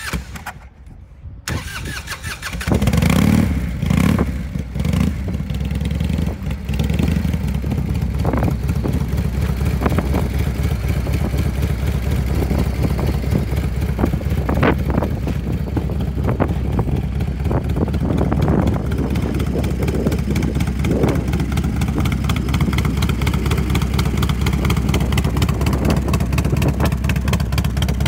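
1998 Harley-Davidson Softail Fat Boy's Evolution V-twin engine cranked and started about two seconds in, revving briefly as it catches, then idling with a steady rhythmic beat.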